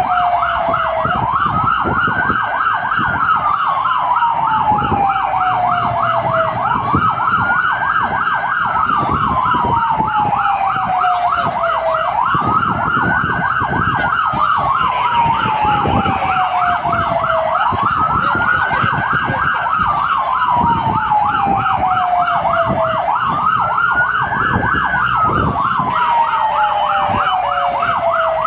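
Fire engine sirens sounding on an emergency run, heard from inside the cab. A slow wail rises and falls about every five and a half seconds, over a faster warbling tone that rises and falls several times a second. Engine and road noise run underneath.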